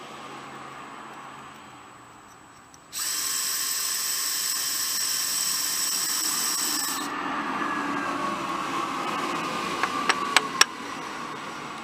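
Cordless drill starting up suddenly about three seconds in and running at speed with a high, scraping whine while a small carburetor part is worked against it. It then slows with a falling whine and stops after a few sharp clicks near the end.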